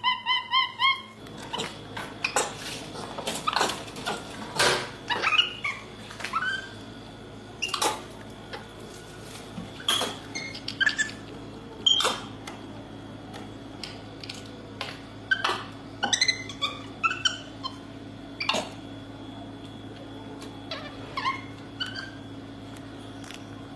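An animal making short, rising squeaks and chirps, mixed with many sharp clicks and taps.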